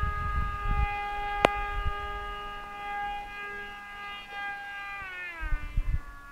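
Depron foam RC Su-37 model flying overhead, its electric motor and propeller giving a steady high whine that drops in pitch about five seconds in as the throttle comes back. Wind buffets the microphone at the start and near the end, and there is a single sharp click about a second and a half in.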